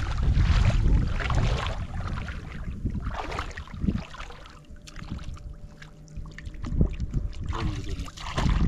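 Shallow water splashing and sloshing around a person's legs as he wades, with wind rumbling on the microphone. The splashing is loudest in the first few seconds, dies down in the middle while he stands bent over reaching into the water, then picks up again near the end.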